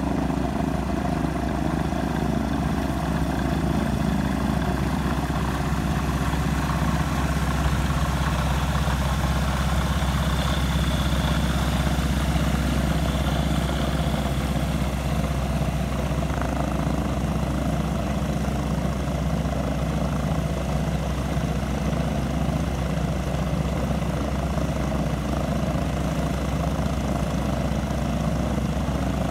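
Weight-shift microlight trike's engine and propeller running steadily while it taxis.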